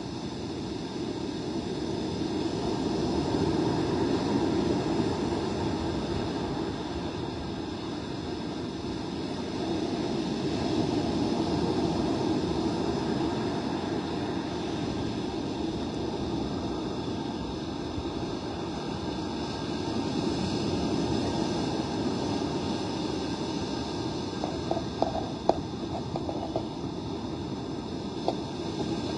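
Steady rush of gusty wind and surf on the beach, swelling and easing every several seconds, with a few faint clicks near the end.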